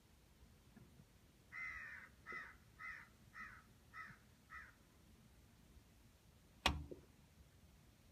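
A crow cawing six times in a row, about two harsh calls a second, the first the longest. A single louder sharp click comes near the end.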